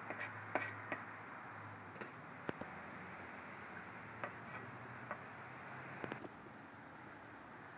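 Sparse light clicks and taps of a knife working on a small cutting board, with faint scraping, over a steady outdoor hiss. A faint low hum in the background stops about six seconds in.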